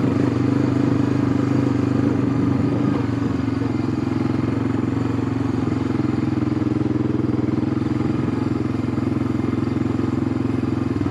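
ATV engine running at a steady speed while being ridden, a constant engine drone with no revving up or down.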